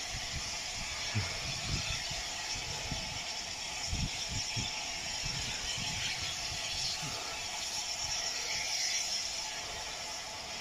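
Steam locomotive 34081, a Bulleid Battle of Britain class light Pacific, working hard in the distance: uneven low exhaust beats, about one or two a second, over a steady hiss. The beats fade after about seven seconds.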